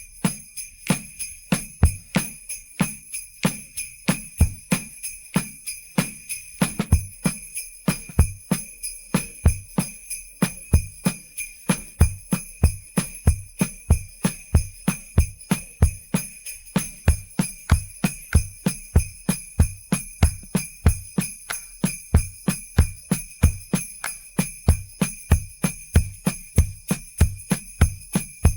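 Drum kit and sleigh bells on their own, separated from a pop song's mix. The sleigh bells jingle continuously over a steady beat of drum hits, about two a second.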